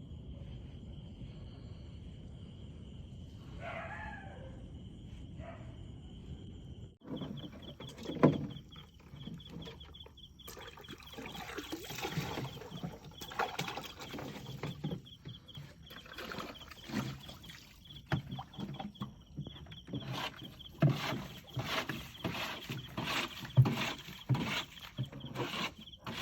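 Night insects, crickets, trilling steadily in a fast pulsing chirp. A short wavering call comes about four seconds in. After a sudden break near seven seconds, a string of sharp knocks and handling clatter follows.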